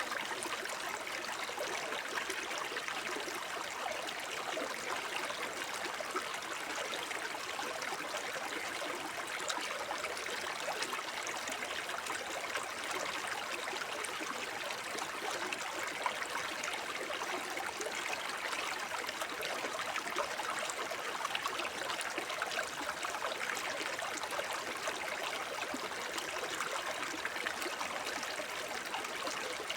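Small forest brook babbling over stones: a steady, even rush of flowing water with fine trickling and splashing detail.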